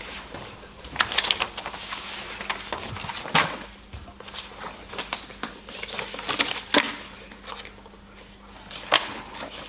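Loose sheets of paper rustling and being shuffled together on a wooden lectern, in irregular short rustles with several sharp handling snaps.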